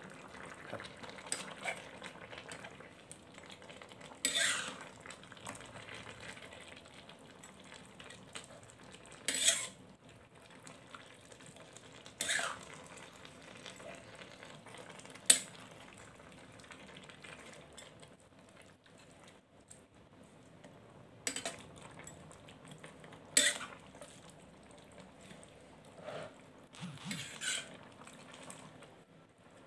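A metal spatula stirs chicken and bamboo shoots in an aluminium electric wok, scraping the pan, with sharper clinks and scrapes every few seconds. Under it the food sizzles faintly.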